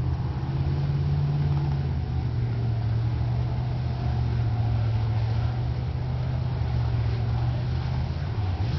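Mud-bog pickup truck's engine running under heavy load at steady revs as the truck churns slowly through a deep mud pit. The engine note holds nearly constant and starts to waver near the end.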